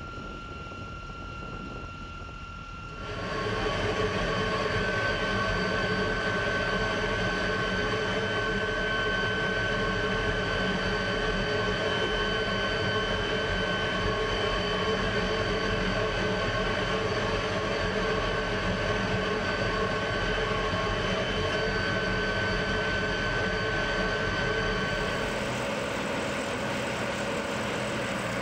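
MiG-15 jet engine running steadily on the ground, a constant high whine over a rumble. It is quieter for the first few seconds, then louder and closer as heard from inside the cockpit, and changes again near the end.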